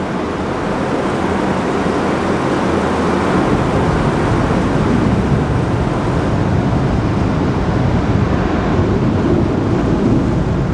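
Automatic car wash working over the car, heard from inside the cabin: a loud, steady rushing noise that grows heavier and deeper about three seconds in, then cuts off suddenly at the end.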